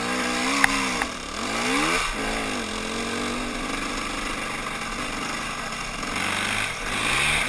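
Dirt bike engine running as it is ridden along a dirt trail, its pitch dropping and climbing with the throttle and rising sharply about two seconds in and again near the end. A single sharp click about half a second in.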